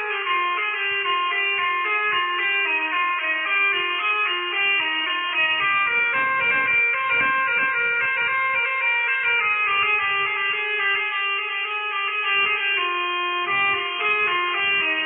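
Melodica (pianika) playing a quick telolet bus-horn style melody: several reedy notes sounding together and changing rapidly over a held lower note, with faint irregular low thumps underneath.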